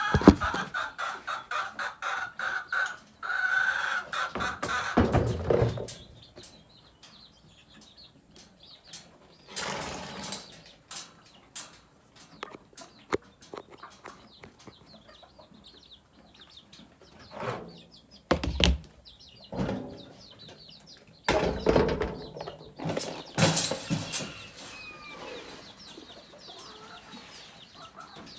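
Chickens clucking, mixed with sharp clicks and several louder knocks and rustles close to the microphone.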